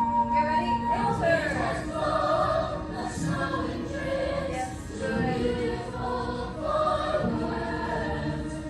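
A group of young voices singing together in chorus over instrumental accompaniment, in a stage musical number.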